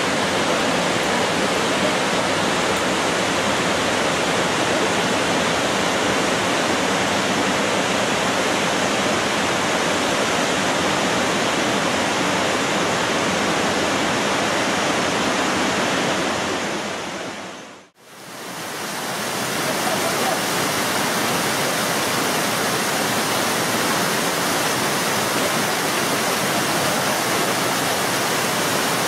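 Waterfalls rushing steadily over rock cliffs. The sound fades out briefly about eighteen seconds in and comes back at the same level.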